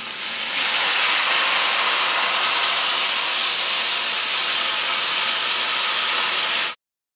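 Chicken stock poured from a carton into a hot stainless steel pan of browned chicken and garlic, hissing and sizzling steadily as the liquid hits the hot metal and oil. It cuts off suddenly near the end.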